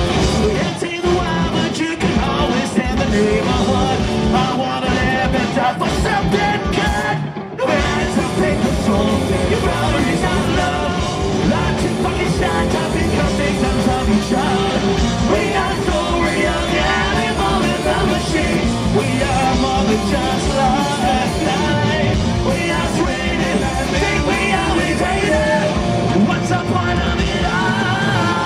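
Punk rock band playing live, with electric guitars, bass and drums under sung and shouted vocals. The band stops for a split second about seven seconds in, then comes straight back in.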